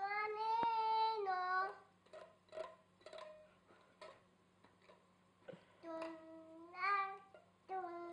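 An 18-month-old toddler singing in a high voice: one long wavering held note, then after a quieter pause more sung phrases near the end. A faint steady hum runs underneath.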